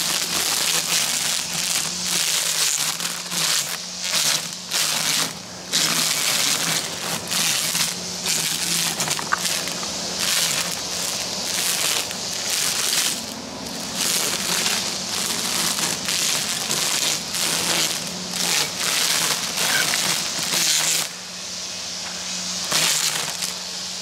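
Battery-powered string trimmer running with a steady motor hum, its line cutting through tall grass in repeated crackling bursts. The cutting noise eases for a moment about three-quarters of the way through, then picks up again.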